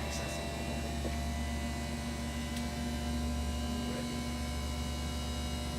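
Electric hospital bed's lift motor running steadily as the bed is raised: an even hum with a steady tone.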